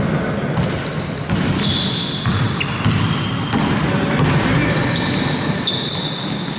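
Basketball game on an indoor court: a ball bouncing on the floor, with short high squeaks and a steady hall din.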